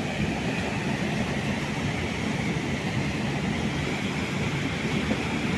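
A river flowing steadily over stones, an even rushing of water.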